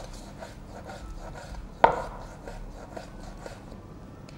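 Cleaver thin-slicing raw beef fillet on a wooden cutting board: quick, light strokes of the blade through the meat, with one loud knock of the blade on the board a little under two seconds in.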